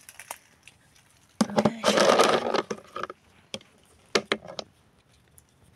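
In-shell almonds, green hulls removed, clattering into a container: a dense rattle about a second and a half in, then a few single clicks as more almonds drop in.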